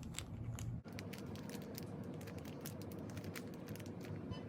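Tiny styrofoam beads being poured out, a rapid, irregular spray of light ticks and patters.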